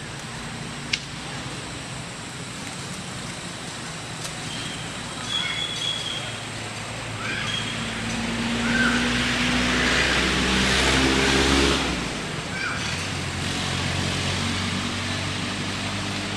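A motor vehicle passing on a road, its engine hum and tyre noise swelling to the loudest about ten to twelve seconds in and then easing off. A few short high squeaks come and go over it, and a single sharp click sounds about a second in.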